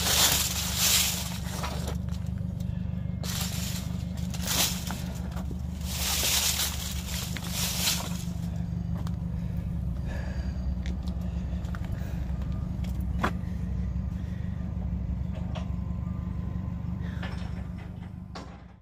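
An engine idling with a steady low hum. Several loud rushes of noise come in the first eight seconds, and the sound fades out near the end.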